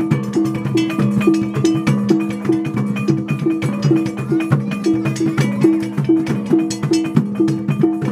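Traditional Butonese drum-and-gong ensemble playing dance music: rapid, even hand-drum strokes under a gong tone that repeats about three times a second over a steady ringing hum.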